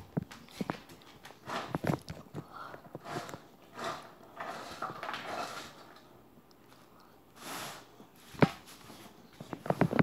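A dog eating dry kibble from a stainless steel bowl: irregular crunching and chewing, with clicks of kibble and teeth against the metal. One sharper click comes about eight and a half seconds in.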